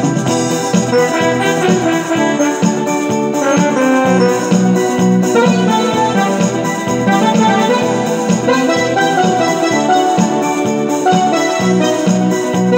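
Electronic keyboard playing an instrumental passage: an organ-like melody over a steady rhythmic accompaniment with a regular pulsing bass.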